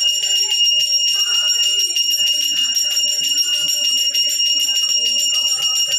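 A puja hand bell rung rapidly and without a break: a steady high ringing with a fast shimmering rattle, rung while the aarti lamp is waved.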